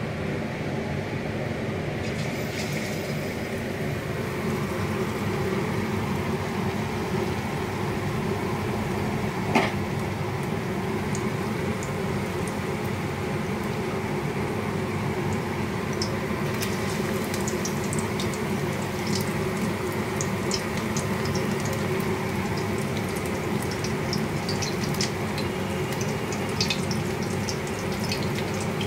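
Battered chicken pakora pieces deep-frying in hot oil in a steel wok: a steady sizzle, with crackles and pops growing more frequent from about halfway through. One sharp knock about ten seconds in.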